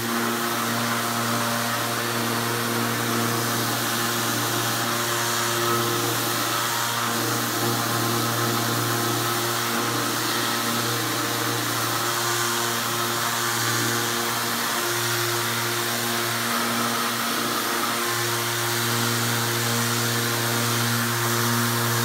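Festool random orbital sander, hooked to a dust extraction hose, starting up and running steadily as it sands the wood of a carved half-hull model.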